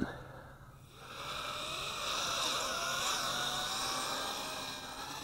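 Small 130 mm FPV racing quadcopter's brushless motors and propellers whining, rising about a second in as it climbs, with a pitch that wavers as the throttle changes.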